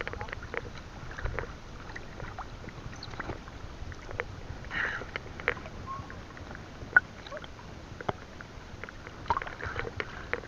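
Choppy sea water lapping and splashing against a bangka's bamboo outrigger and wooden hull, with scattered sharp clicks and knocks throughout.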